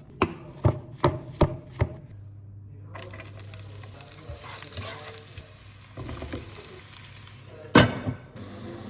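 Five sharp knocks in quick succession, then food sizzling as it fries in a pan, with one loud knock near the end.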